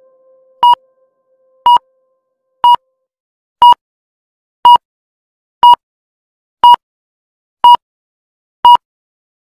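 Electronic countdown timer beeping: a short, high beep once a second, nine times, counting down the last seconds of a workout rest interval.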